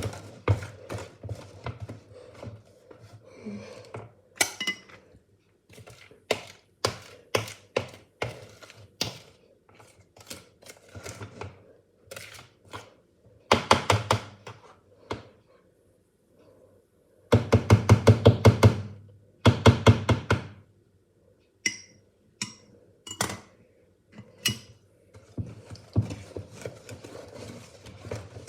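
A spoon or spatula knocking and scraping against a mixing bowl while folding cake batter, in scattered knocks with two spells of rapid tapping about halfway through.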